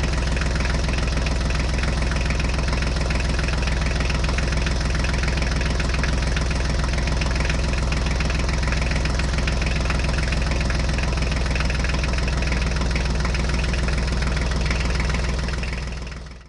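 Tractor engine idling steadily with an even, rapid knock, fading out near the end.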